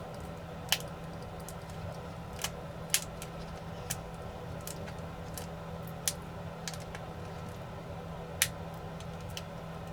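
Light, irregular clicks and ticks of small hand tools working at a drone's plastic body while separating tape, about eight in all with the sharpest near the start, a third of the way in and near the end, over a steady low hum.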